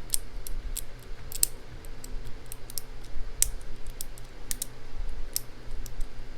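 Lock pick and tension wrench working the pins of a pin-tumbler challenge lock: small metallic clicks and scrapes at an irregular pace, over a faint steady low hum.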